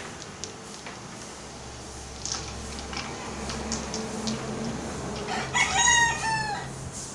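A rooster crows once, loudly, for about a second, starting about five and a half seconds in. Before it, scattered light clicks of billiard balls knocking on a mini pool table.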